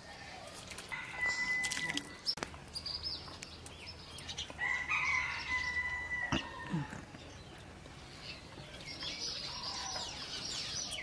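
A rooster crowing twice: a held call about a second in and a longer one near the middle, with a few sharp clicks between.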